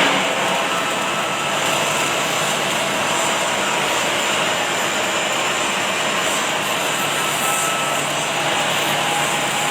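Automatic welding machine at work: a steady, even hiss and crackle of the arc, with machinery noise behind it.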